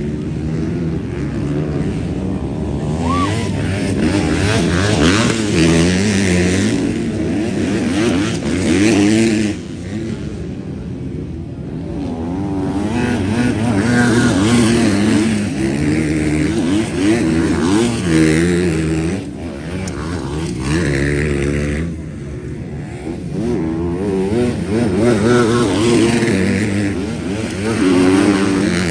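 Several motocross bikes racing, their engines revving up and falling back again and again as they work the track, with the sound swelling and fading as they pass.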